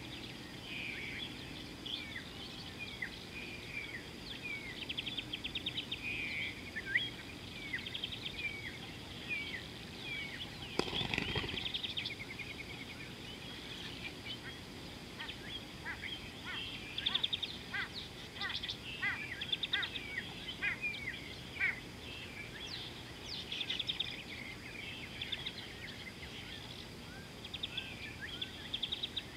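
Several birds chirping and trilling, many short quick notes overlapping throughout, over a faint steady high tone. A brief rushing noise comes about a third of the way through.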